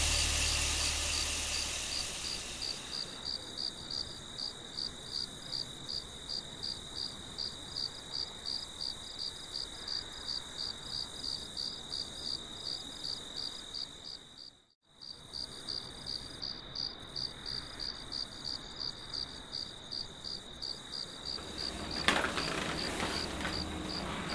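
Crickets chirping in an even, steady rhythm of about three chirps a second, as the last of the music fades out at the start. The chirping drops out briefly near the middle, and near the end a tap starts running into a sink.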